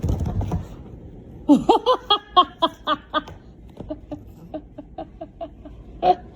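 A person laughing: a run of loud, evenly spaced bursts of laughter starting about a second and a half in, trailing off into quieter, quicker chuckles. A low rumble comes first, at the very start.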